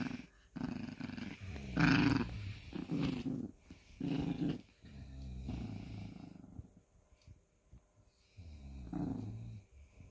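Yorkshire terrier growling in a string of short bursts over a toy, a playful possessive growl.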